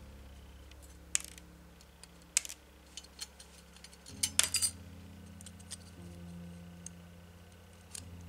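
Thin etched steel sheet and small parts of a Metal Earth model kit clicking as they are handled, with a handful of sharp metallic clicks. The loudest cluster comes about four seconds in.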